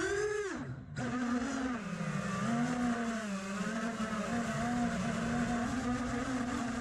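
Eachine Wizard X220 quadcopter's brushless motors and props whining under throttle. The pitch rises, cuts out sharply just before a second in, then picks up again and wavers with small throttle changes.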